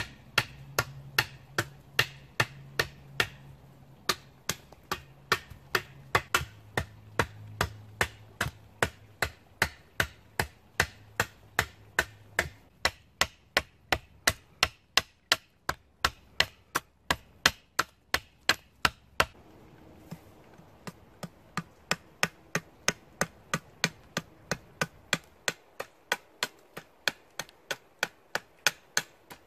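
A large knife blade chopping down along a wooden crossbow prod, about two sharp chops a second with a short break about two-thirds of the way through. The chops are rough-hewing wood off the belly and sides of the prod to shape it.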